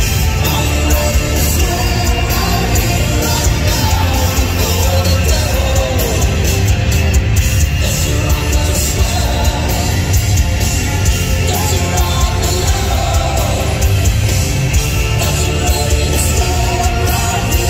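A heavy rock band playing live at full volume, with a singer's voice over the band.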